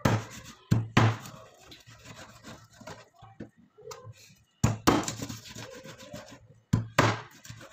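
Kitchen knife cutting raw chicken on a cutting board: sharp knocks of the blade on the board, mostly in quick pairs a few seconds apart, with softer rubbing and scraping of the blade through the meat between them.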